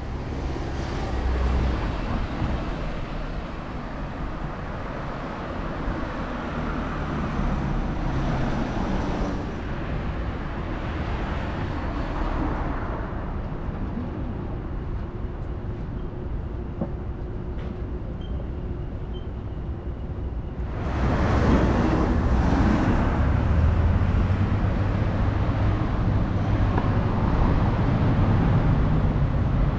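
City street traffic: vehicles passing in swells and lulls, growing clearly louder about two-thirds of the way through.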